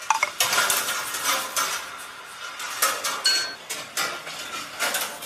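Balls rolling and clattering along the metal wire tracks of a rolling-ball sculpture: a continuous metallic rattle broken by sharper clinks. A short ringing note sounds a little over three seconds in.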